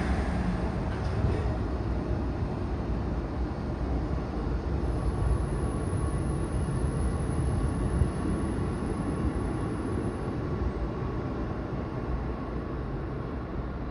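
Kotoden 1200-series electric train pulling out of the platform and moving away: a steady low rumble of motors and wheels on the rails that slowly fades. A faint steady high tone sounds from about five seconds in to about ten seconds in.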